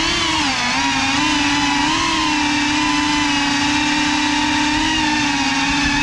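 Brushless motors and propellers of a Cinelog 35 cinewhoop FPV drone whining, heard from the onboard camera; the pitch wavers up and down in the first second, then holds nearly steady.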